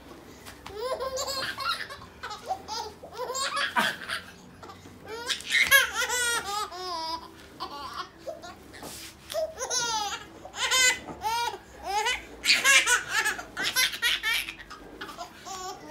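Baby laughing hard in repeated fits, with short breaks between the bursts.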